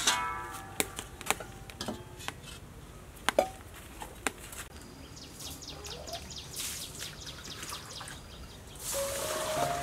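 Wood fire crackling, with sharp snaps and pops at irregular intervals. Near the end, water pours from a scoop.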